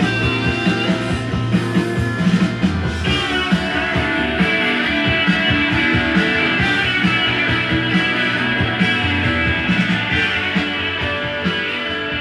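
Rock music with guitar, played from a vinyl LP on a Dual 504 belt-drive turntable and heard through loudspeakers.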